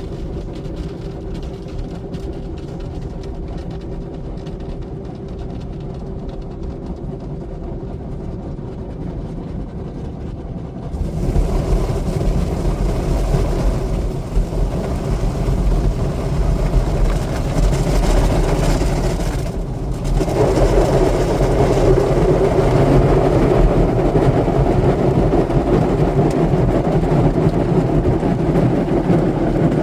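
Broadway in-bay automatic car polisher starting up and running. A steady low hum gives way, about a third of the way in, to a louder churning machine sound. It cuts back briefly about two-thirds of the way through, then resumes louder.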